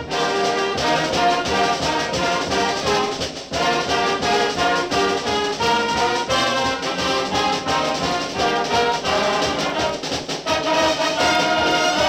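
Band music led by brass, with trumpets and trombones playing a tune in short, rhythmic notes.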